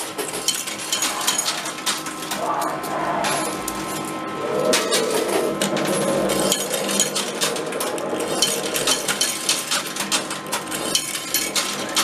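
Coin pusher arcade machine: metal coins clinking and clattering at irregular intervals as they drop onto the pusher shelf and knock against the coins on the playfield, over a steady hum.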